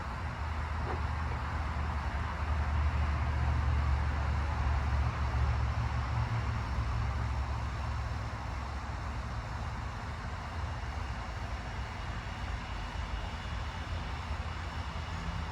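Steady low rumble of a running engine, growing a little louder a couple of seconds in and easing off after several seconds.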